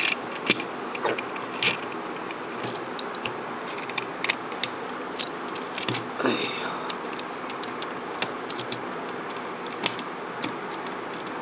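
Scattered small clicks and ticks of plastic parts being handled as a roller screw is turned into a Tamiya Mini 4WD plastic chassis, over a steady hiss.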